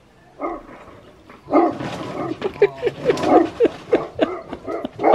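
A large dog barking in a rapid run of repeated barks, starting about one and a half seconds in, after one short bark.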